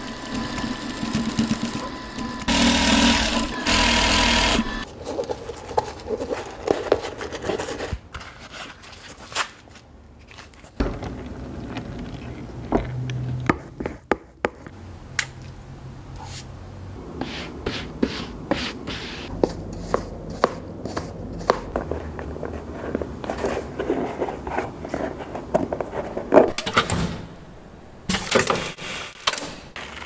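Shoe-workshop sounds: an industrial sewing machine stitching a climbing-shoe upper for the first few seconds, then scattered clicks, taps and scrapes of hand work, with a low machine hum in the middle.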